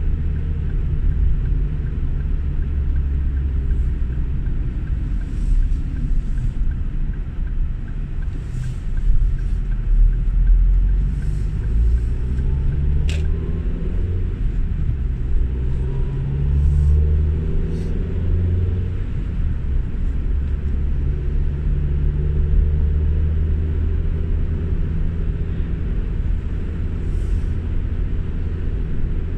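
Car driving, heard from inside the cabin: a steady low engine and road rumble, the engine note rising twice as the car picks up speed. A single sharp click about halfway through.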